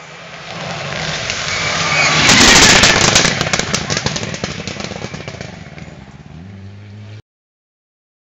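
Rally car engine at full throttle, growing louder as it approaches and passing close about two and a half seconds in with a string of sharp cracks, then fading away. The sound cuts off abruptly about seven seconds in.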